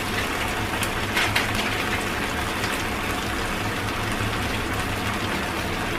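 Thick chilli-tomato and oyster sauce simmering and sizzling in a wok, a steady hiss with a few faint pops about a second in.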